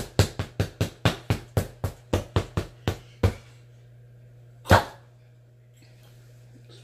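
A quick run of sharp knocks, about four a second for some three seconds. After a pause comes one louder knock.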